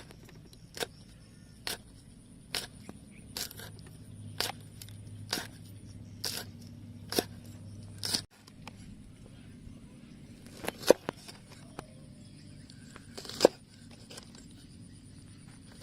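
Sharp knocks at an even pace of about one a second, a short gap, then a few more scattered strikes, with a steady faint high whine behind them.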